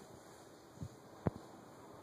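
Two small knocks from budgerigars in a wire cage over faint steady room hiss: a soft, dull one a little before the middle, then a sharper, louder click just after.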